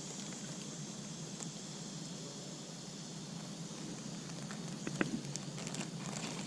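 Steady outdoor background hiss, with a few faint clicks or taps about five to six seconds in.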